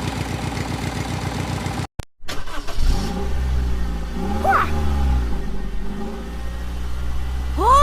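Vehicle engine sounds: a rapid, even putter for about two seconds, a brief break, then a steady low engine rumble. A pitched tone rises and falls once in the middle and again, louder, right at the end.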